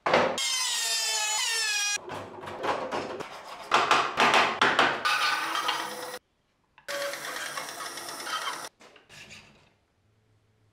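Woodworking power tools cutting small wooden parts in short clips. A machine whine that slides in pitch, then a bandsaw cutting through wood with a noise that rises and falls for about four seconds. It stops abruptly, another steady cutting run follows, and a few faint hand-tool scrapes come near the end.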